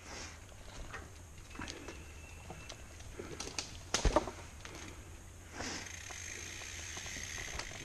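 Footsteps on a dirt trail with light knocks and rattles from mountain bikes being pushed uphill, and one louder knock about four seconds in. A steady hiss sets in near the end.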